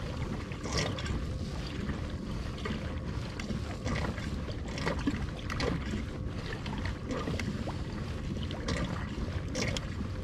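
Water rushing and lapping along the hull of a Hobie Pro Angler 14 fishing kayak under way, with small irregular splashes and wind buffeting the microphone.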